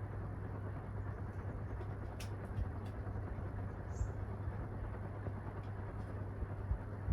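Stamped-steel-motor ceiling fan with aluminium blades running steadily at medium speed on a capacitor speed controller: a steady rush of moving air over a low, even motor hum, with a few faint clicks.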